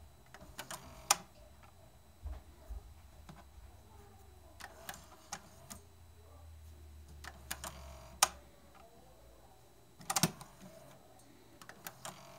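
Sharp mechanical clicks and clunks from a TEAC V-8030S cassette deck's transport buttons and mechanism, coming at irregular intervals, with a faint low hum under the first part.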